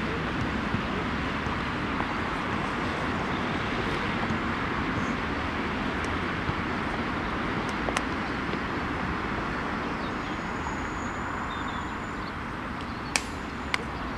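Steady outdoor background noise, a continuous hiss and rumble with no clear single source. A few sharp knocks stand out, two of them close together near the end.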